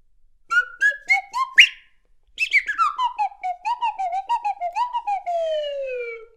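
Toy slide whistle. It starts with a run of short toots that step up in pitch and end in a quick upward swoop, then pauses. Then comes a fast slide down into a wobbling, warbling stretch, and a long slow slide down to a low note.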